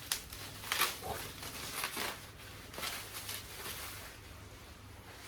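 Handling noise from a mini bike seat being picked up and moved about: a scattered series of short rustles and light knocks, dying away near the end.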